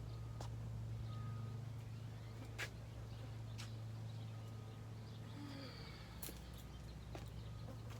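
Outdoor background: a steady low hum with about five scattered sharp clicks or snaps and faint short bird calls.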